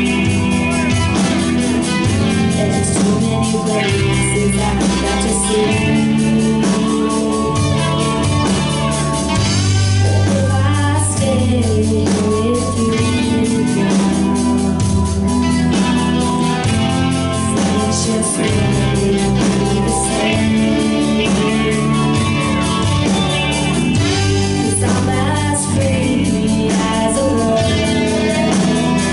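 Live rock band playing: a singer over electric guitars, bass and drums.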